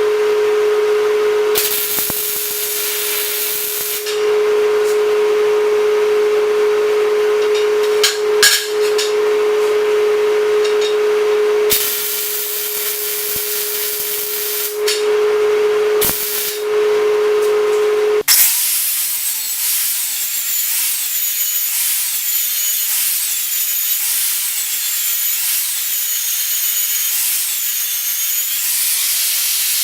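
Angle grinder running with a steady whine, grinding down a weld on steel plate in several spells of heavier contact. About 18 seconds in it cuts abruptly to a different steady hiss, with a faint pitch that wavers up and down about once a second.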